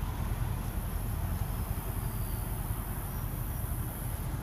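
Steady outdoor background noise: a low rumble with a thin high hiss above it, with no distinct events.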